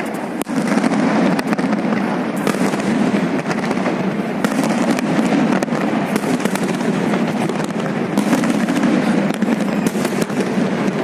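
Fireworks salute going off in a continuous barrage, many sharp bangs and cracks following one another without a break.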